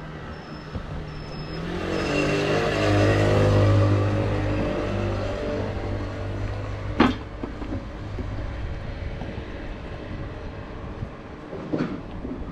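A motor vehicle passing on the street, its engine swelling to loudest about three to four seconds in and then fading. A single sharp click comes about halfway through.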